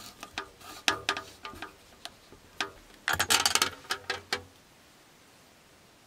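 Fly reel's click-and-pawl drag ratcheting as line is pulled off it in a few short pulls, the longest and fastest run a little after three seconds in. The clicking stops after about four and a half seconds.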